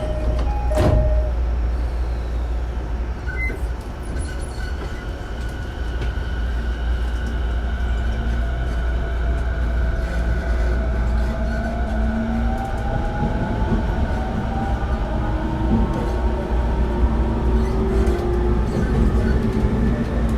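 Interior sound of a JR 209-500 series electric train's motor car. About a second in, a two-note chime ends with a door knock. The train then pulls away, its traction motor and inverter whine rising in pitch as it accelerates over a steady rumble.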